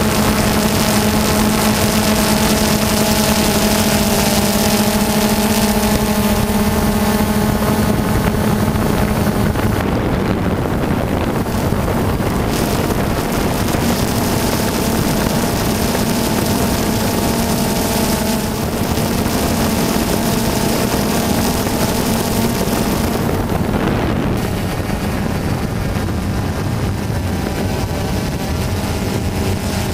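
Quadcopter drone's motors and propellers buzzing steadily, with a constant hiss of rushing air. The pitch shifts slightly about ten seconds in and again near the end as the drone manoeuvres.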